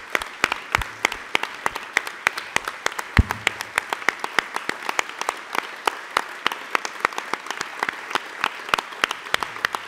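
Audience applauding steadily, with individual sharp claps standing out from the dense clapping. A single low thump about three seconds in.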